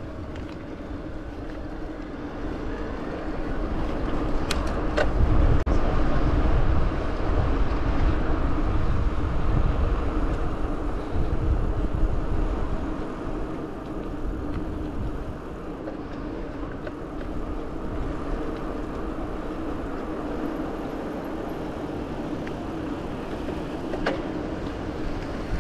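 Riding noise of an e-bike on a paved path heard on an action camera: wind buffeting the microphone and tyre rumble, heavier from about four seconds in to about thirteen seconds, over a steady hum. A few sharp clicks sound around five seconds in and near the end.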